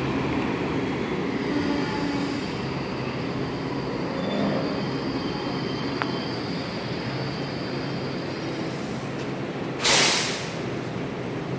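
Metro-North M8 electric commuter train running at the station, a steady rumble with a thin high wheel squeal over it. About ten seconds in comes a short, loud burst of hiss.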